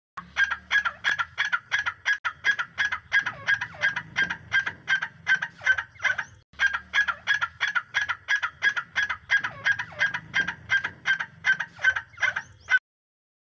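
Recorded teetar (francolin) call played as a decoy to lure partridges to the net: rapid, repeated harsh notes, about three a second. The call breaks briefly about halfway and starts over as a loop, then cuts off suddenly near the end.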